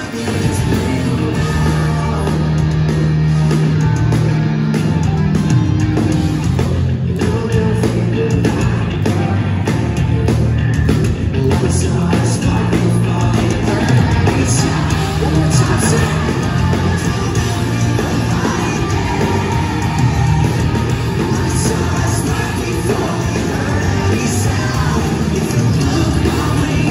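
Pop-punk band playing live through a concert PA: loud electric guitars, bass guitar and drums, with a lead singer's vocals.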